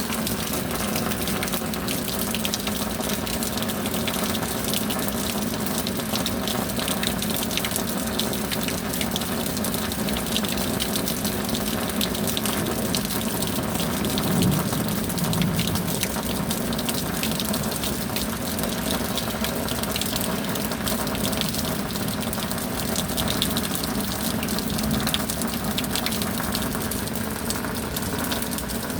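Steady heavy rain, a dense even rushing of water with many close drops ticking through it.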